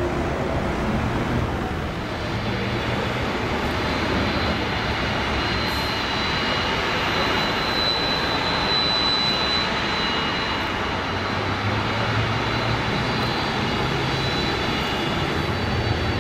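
McDonnell Douglas MD-11 jet engines running, a steady loud roar with a high whine that comes in a couple of seconds in.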